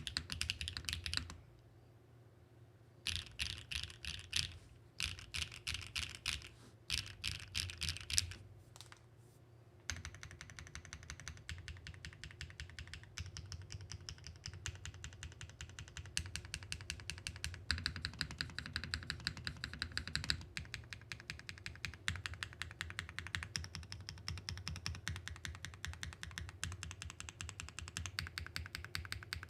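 Typing on a Mode65 mechanical keyboard with BSUN Bunny linear switches: short bursts of key presses with two brief pauses, then fast steady typing from about ten seconds in.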